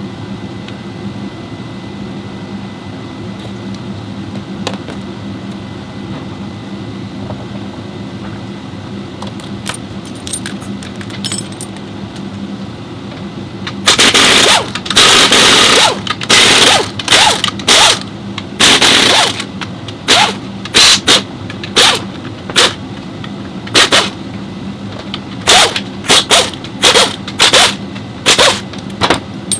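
Pneumatic air tool in a repair shop run in a series of loud bursts, starting about halfway in with one long burst followed by many short ones. A steady machine hum runs underneath.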